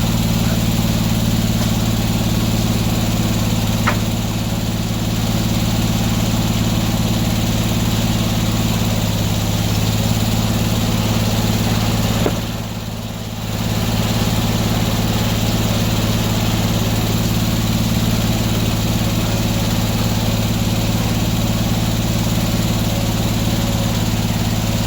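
Antique sawmill's engine running steadily, with a sharp knock about four seconds in and a brief dip in level about halfway through.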